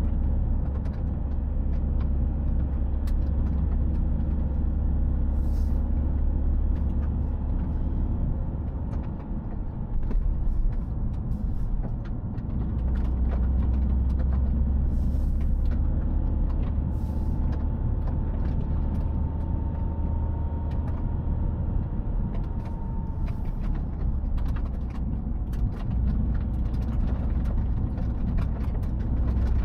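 Toyota GR Yaris driving, heard from inside the cabin: engine and tyre noise make a steady low drone that dips briefly about ten seconds in.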